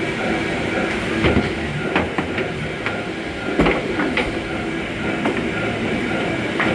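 Arcade game-room din: several game machines sound steady electronic tones at once over a rolling rumble, with sharp knocks every second or so.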